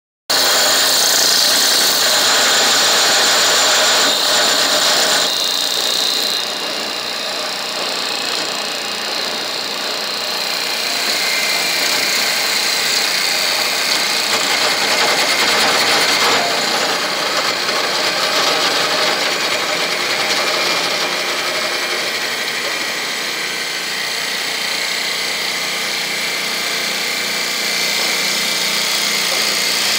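Twin-spindle CNC wood lathe turning two wooden blanks at once: a steady, loud noise of the cutters shaving the spinning wood along with the machine's running drive, shifting slightly in pitch and loudness as the cut moves along the pieces.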